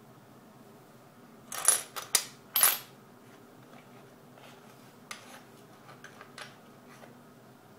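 Silver coins clinking against each other and clicking down onto a wooden tabletop as they are handled: a few loud, sharp clinks about one and a half to three seconds in, then lighter clicks around five to six and a half seconds in.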